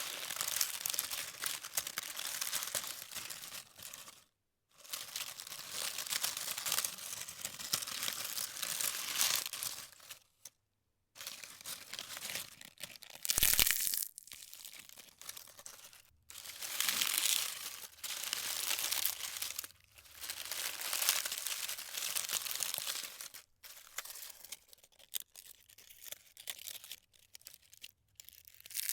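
Dry leaves crunching and crackling in irregular stretches of a few seconds, broken by short pauses. About halfway through there is one brief, louder thump.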